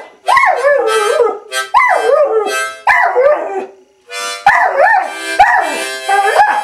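An Australian Cattle Dog howling along with blues harmonica: the dog's wavering howls rise and fall over the harmonica's held chords, in short phrases with brief breaks, the longest about four seconds in.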